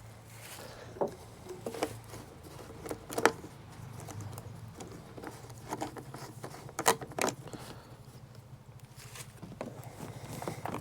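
Scattered light clicks, taps and rattles of hands working on parts, the sharpest about three seconds in and again near seven seconds, over a steady low hum.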